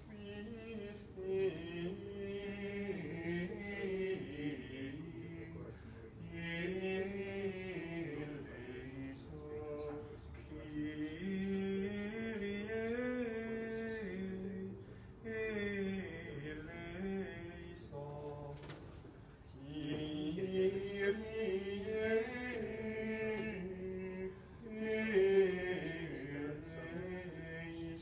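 Gregorian chant sung in Latin: slow melodic phrases of a few seconds each, separated by short breaths.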